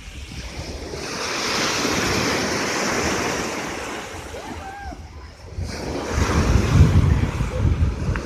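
Black Sea surf: waves breaking and washing up the shore in slow swells, with wind buffeting the microphone as low rumbling gusts late on.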